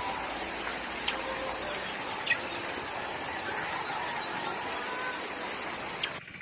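Outdoor ambience: a steady high-pitched buzz with a few short, faint chirps. It cuts off abruptly near the end.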